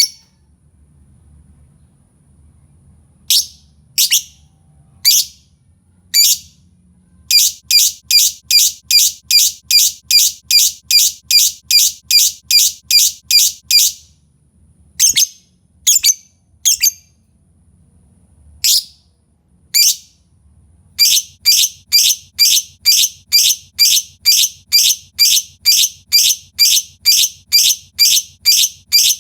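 Lovebird calling with sharp, shrill, high-pitched calls. It gives a few single calls, then long runs of rapid calls at about two a second.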